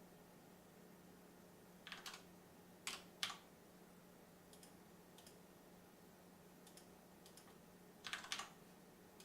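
Scattered computer keyboard clicks: a pair about two seconds in, two more around three seconds, and a quick cluster near the end, over a faint steady hum.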